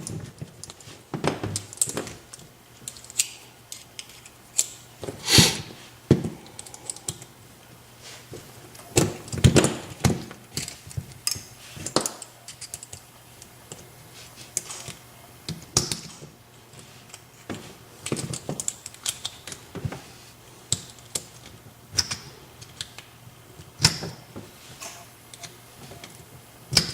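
Irregular small metallic clicks, taps and knocks of a euro profile cylinder lock and hand tools being handled as the lock is taken apart.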